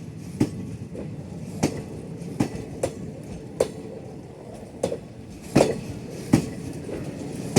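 Passenger express train's coaches rolling on the track, wheels clacking over rail joints: sharp clicks roughly once a second, some in quick pairs, over a steady rail rumble.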